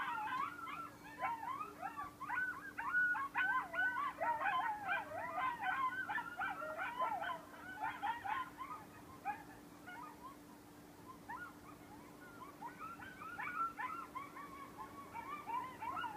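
A group of coyotes howling together: many overlapping, wavering calls that rise and fall quickly. The chorus thins out a little past halfway and builds again near the end.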